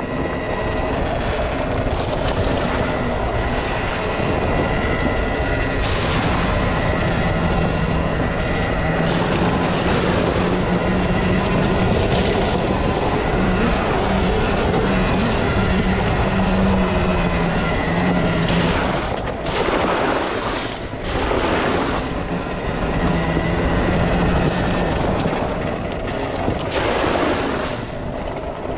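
Volcon Grunt electric off-road motorcycle riding along a dirt trail: steady tyre and riding noise with a thin, even motor whine, broken by a few short surges of noise in the second half.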